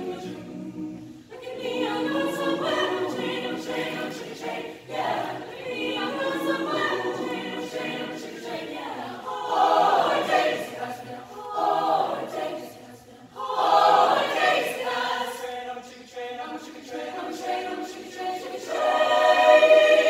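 Mixed high school choir of boys and girls singing in parts, with phrases that swell louder about halfway through and again near the end.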